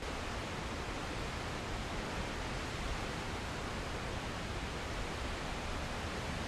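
Steady rushing noise of Horseshoe Falls' water plunging and crashing into the river below, heard from very close.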